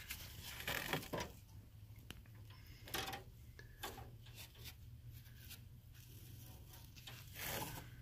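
Gloved hands handling small brass flare fittings: a few short rustles and scrapes with small metallic clicks, over a low steady hum.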